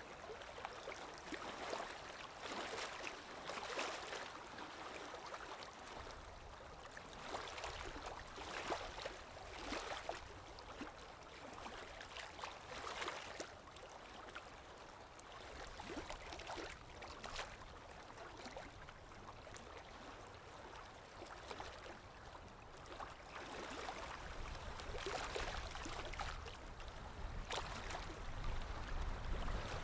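Stream water flowing and splashing in irregular surges, with a low rumble that swells near the end.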